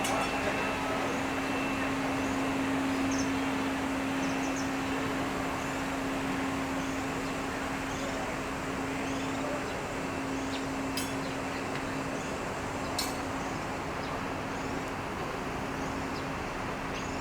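Urban street background: steady traffic noise with a constant low drone from an engine or machine, and faint short high chirps repeating about once a second.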